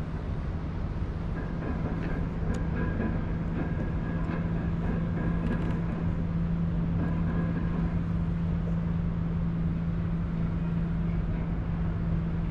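A steady low motor hum over a wash of wind and water noise, with a faint thin whine coming and going during the first half.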